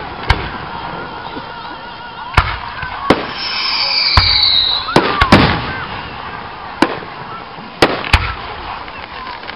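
Aerial firework shells bursting in the sky: about nine sharp bangs at irregular intervals. A high whistle, falling slightly in pitch, sounds for about a second near the middle.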